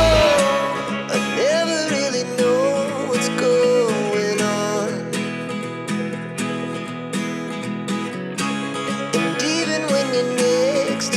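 Background music: a plucked acoustic guitar with a gliding lead melody over it.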